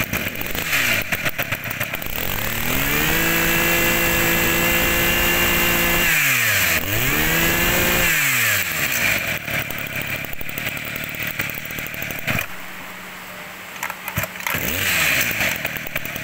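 Kioritz 26 cc two-stroke brush cutter engine running. It revs up about three seconds in and holds at high speed, drops, revs briefly again around seven seconds, then falls back to a rougher, lower-speed run.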